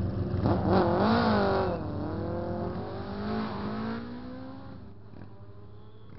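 Vintage racing engine revving hard and pulling away from the start line. Its pitch climbs and drops back twice like gear changes, and it fades as it moves off. Other engines idle underneath.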